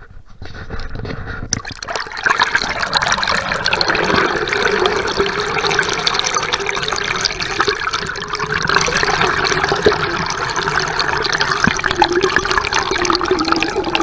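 Water rushing and gurgling over an action camera submerged in a river: a loud, continuous churning that builds up about two seconds in.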